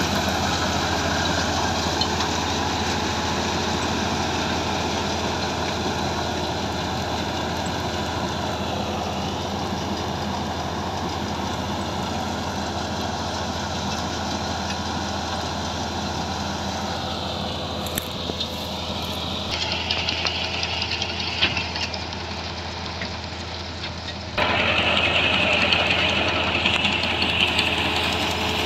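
Mahindra Novo 605 DI 4x4 tractor's diesel engine running steadily under load, driving a PTO straw reaper whose rotor and blower add a rushing whir as it chops stubble into bhusa. The sound shifts abruptly twice and is louder near the end.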